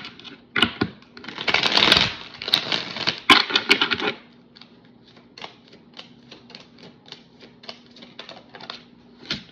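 A deck of cards being shuffled by hand. A few louder rustling swishes come in the first four seconds, then a quick, irregular run of light clicks as cards slip from hand to hand.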